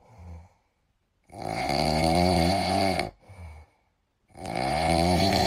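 French bulldog asleep and snoring: two long snores about a second apart, with faint breaths between them.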